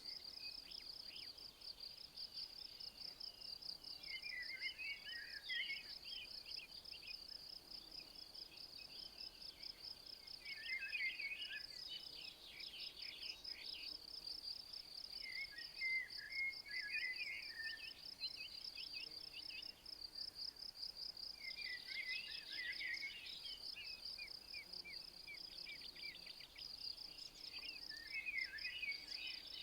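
Crickets chirring in a steady, fast-pulsing high drone, while a songbird sings short trilling phrases about every five to six seconds.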